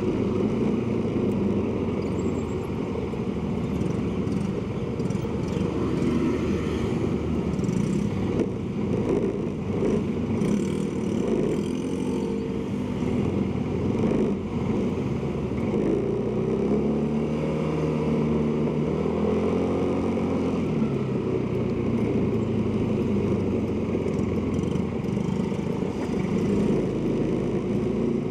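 Motorcycle engine running under way, heard from the moving bike with steady road and wind noise. Midway, the engine's pitch climbs and then drops again over several seconds as it speeds up and eases off.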